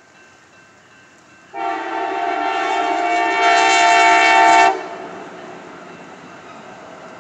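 Train horn sounding one long blast of about three seconds, a chord of several steady tones that grows louder partway through and then cuts off sharply. A fainter steady rumble of the train carries on after it.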